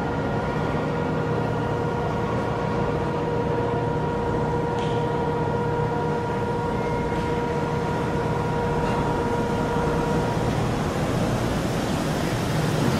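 Straddle-beam monorail trains running on an elevated concrete guideway. There is a steady rumble from the rubber tyres and a steady electric whine in several tones, which stops about ten seconds in.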